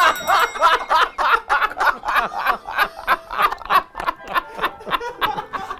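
Men laughing hard together, a rapid, rhythmic ha-ha-ha of about four pulses a second.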